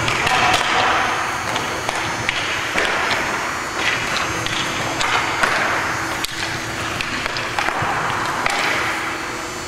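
Hockey skates scraping and rolling across the rink surface, with irregular sharp clacks of sticks against the puck and each other.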